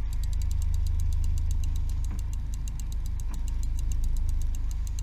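A boat's engine running steadily at idle with a low hum, with a fast, even ticking over it.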